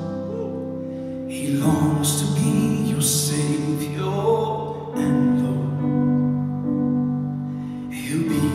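Slow gospel song sung live by a male singer into a handheld microphone with piano accompaniment, in long held phrases that break and restart about every three to four seconds.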